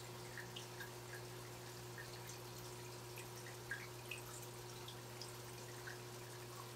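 Aquarium water making small, irregular drip-like plinks and bubbles over a faint steady low hum, with one louder plink a little past halfway.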